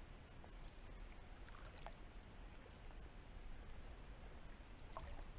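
Faint water lapping and rippling around a float tube as it turns on a calm lake, over a steady high hiss, with a few short faint chirps.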